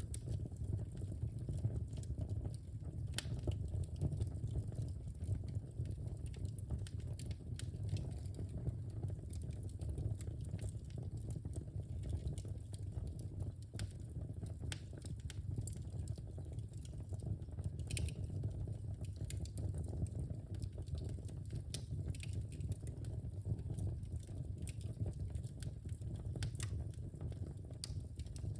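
Wood fire burning in a fireplace: a steady low rumble of flames with scattered sharp crackles and pops from the logs, a few of them louder than the rest.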